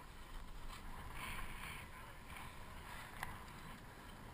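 Wind rumbling on an action camera's microphone, with one sharp knock about three seconds in.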